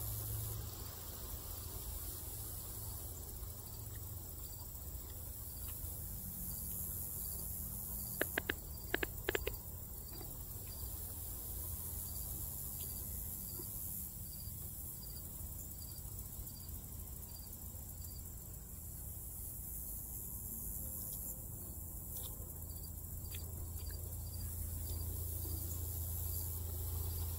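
Insects chirping in an even rhythm of high ticks, about two a second, over a high hiss and a steady low rumble. A quick run of four sharp clicks about eight seconds in.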